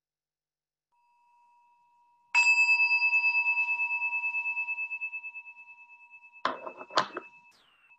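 A bell struck once about two and a half seconds in, ringing with a steady pulsing as it slowly fades; it signals the end of the timed free-writing period. Two sharp knocks come near the end while it is still ringing.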